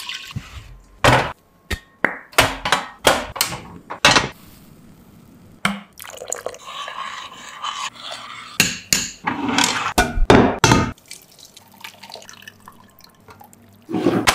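Milk pouring and dripping into a stainless steel pot, followed by a run of sharp knocks and clicks and a short stretch of hiss. Near the end a glass tumbler is set down on a wooden table with a loud knock.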